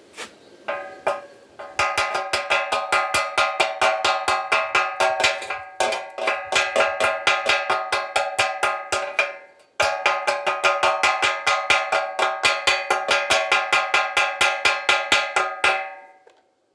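Rapid metal strikes on a welded galvanized steel tube, about four to five a second, each leaving the tube ringing, as the slag is knocked and brushed off a stick-weld bead. Two long runs with a short break about halfway through.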